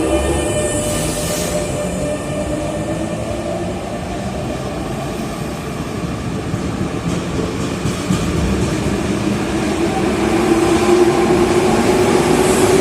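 Electric RER commuter train running through the station with a steady rumble and motor whine; the whine rises slowly in pitch and grows louder near the end.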